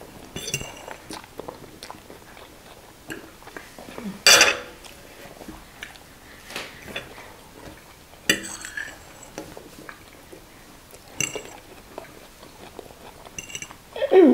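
Close-up eating sounds: instant noodles slurped and chewed, forks scraping and clicking on plates, with a loud sharp slurp about four seconds in. Near the end a man lets out a short 'eww' that falls in pitch.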